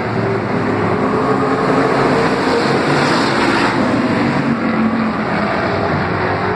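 Engines of several street stock race cars racing around an oval track, a loud steady din whose engine notes rise and fall as the cars go through the turns.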